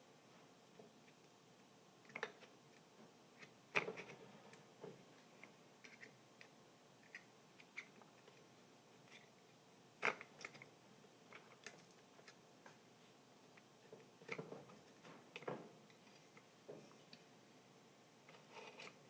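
Quiet, scattered small clicks, taps and handling noises of hands working with tools and speaker parts, with a few sharper knocks about four and ten seconds in.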